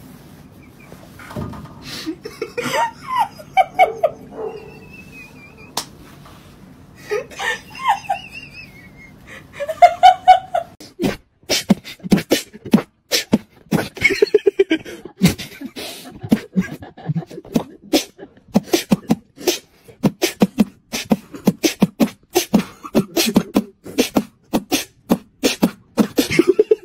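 A fast, steady beat of vocal percussion like beatboxing, sharp clicks and low thumps, begins about eleven seconds in and runs on. Before it come scattered short pitched cries and voice sounds over a low background.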